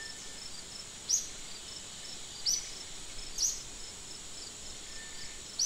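Insects buzzing steadily at a high pitch, with a soft high chirp repeating several times a second, and four louder, sharp high chirps spaced a second or two apart.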